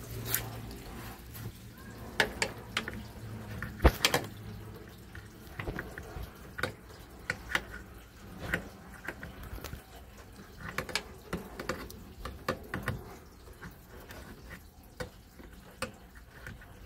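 Scattered small clicks and rustles of hands working at a car's carpeted trunk lining and plastic trim, with one sharper knock about four seconds in.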